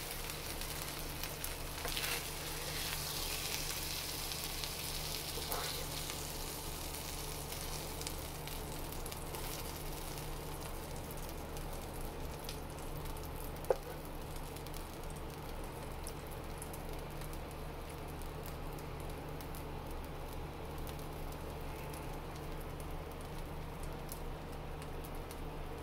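Shaved buffalo chicken and melted cheese sizzling on a Presto Tilt-N-Fold electric griddle, with a metal spatula scraping and tapping on the cooking surface. The sizzle is strongest in the first few seconds and settles to a softer hiss, with one sharp tap about halfway through.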